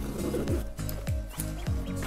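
Background music with a heavy, steady bass-drum beat, about three beats a second, over held bass notes.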